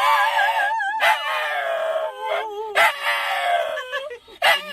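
A dog howling: a run of four or so long, wavering calls, each about a second long, with short breaks between them.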